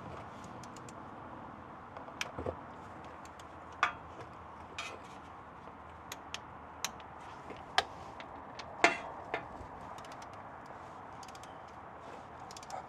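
Scattered sharp metallic clicks and ticks as a torque wrench and socket are worked on the transmission mount bolts, tightening them to 36 foot-pounds, over a steady low background noise.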